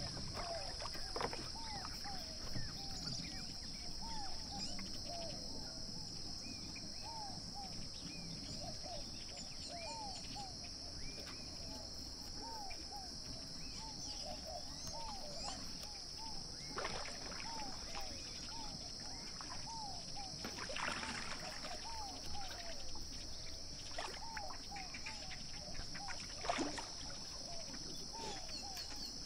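Many short chirping bird calls, one after another, over a steady high-pitched whine. A few soft knocks come in the second half as dough balls are shaped by hand on a wooden board.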